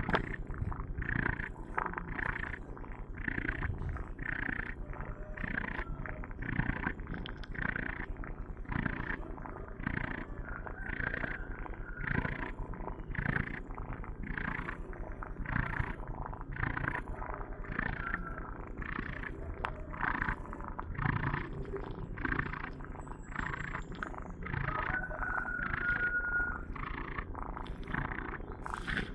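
Domestic cat snoring in its sleep: a long even run of short rasping breaths, one after another.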